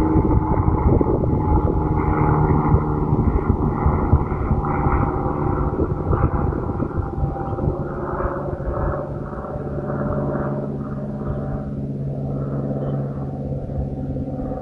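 A motor vehicle running steadily, a low engine hum with rumbling road or running noise.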